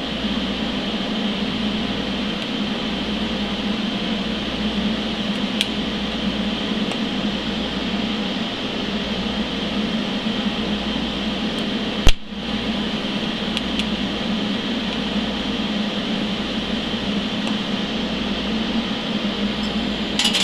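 Steady hum and hiss of a TIG welder at work on thin-walled steel tubing, with one sharp click about twelve seconds in.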